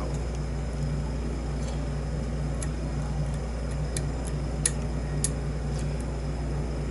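A lock pick working the pin stack of a modified ABUS padlock, making a few faint, scattered light clicks, about six in the second half, over a steady low hum.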